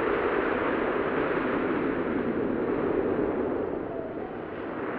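Steady rushing noise with no distinct events, the dense background of a 1930s film soundtrack.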